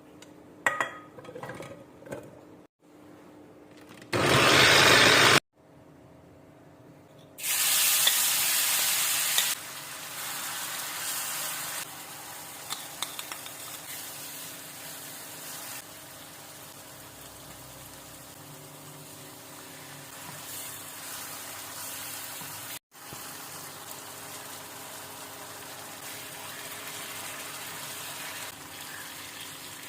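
Food sizzling in hot oil in a pan: loud when it starts about seven seconds in, then settling to a steady sizzle that breaks off abruptly once, about 23 seconds in. Before it, a few clicks and a brief, very loud rush of noise about four seconds in.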